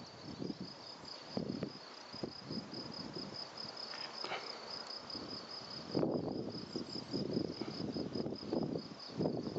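An insect trilling steadily: a high, evenly pulsing note that runs without a break. Low gusty noise comes and goes under it, loudest about six seconds in and again near the end.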